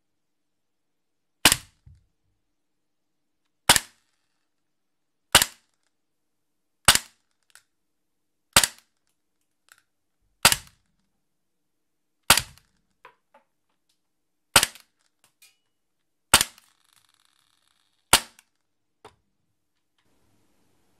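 Cybergun/VFC FNX-45 Tactical gas blowback airsoft pistol fired ten times in slow single shots, about one every two seconds, each a sharp crack as the gas charge fires and the slide cycles. Some shots are followed by a faint tick.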